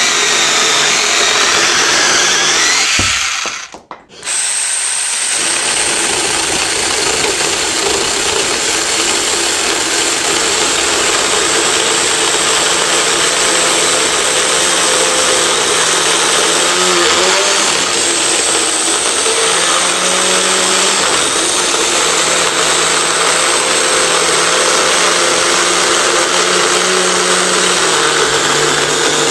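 Small one-hand cordless chainsaws cutting through a log. After a short break about four seconds in, an ordinary blue battery mini chainsaw runs steadily under load with a motor whine as it saws through the wood.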